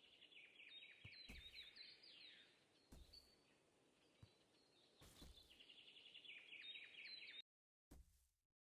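Faint bird chirping: quick runs of short, falling chirps, heard twice over a steady hiss, with a few soft knocks. It cuts off suddenly near the end.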